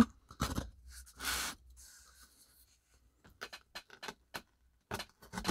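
Light scrapes, rubs and clicks of a watch shipping package being handled and opened, with a brief rustling scrape about a second in and scattered light ticks near the end.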